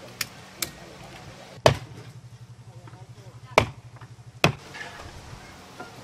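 Hammer blows on the log timbers: two light knocks near the start, then three loud, sharp blows spaced irregularly through the middle, over a low steady hum.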